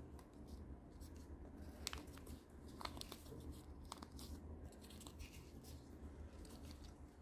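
Faint crinkling and a few soft crackles of a paper cupcake liner being peeled off a toy cupcake.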